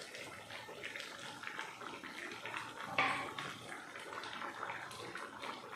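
Thick kuzhambu gravy boiling in a pot, its bubbles popping and crackling, with one brief louder sound about three seconds in.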